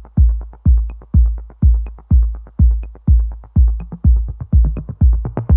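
Electronic background music: a steady kick-drum beat, a little over two beats a second, with light ticking percussion above it.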